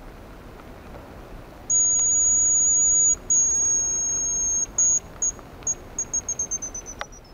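Hazel grouse decoy whistle blown to imitate the male's song. It gives two long, very high, thin whistles that fall slightly, then a few short pips and a quick trill of pips that falls in pitch near the end.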